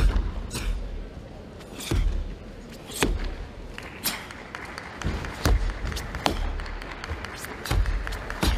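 A karateka performing the kata Jion: a series of about nine sharp snaps of the uniform with punches and blocks, most with a thud of the feet on the floor, coming at uneven intervals.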